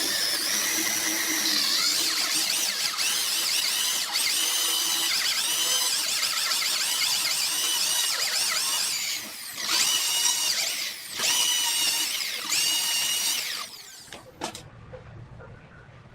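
High-speed power tool motor whining, its pitch shifting as it runs under changing load, dropping off briefly twice before it stops about fourteen seconds in.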